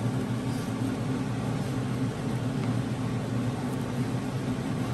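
A steady low mechanical hum with hiss, like a running kitchen fan or appliance. A couple of faint ticks of a knife slicing through grilled chicken onto a wooden board sound over it.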